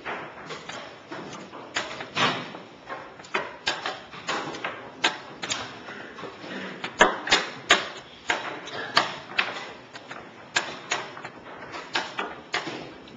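Chess pieces clacking on a board in quick, irregular knocks, one or two a second, as a timed game is played at pace.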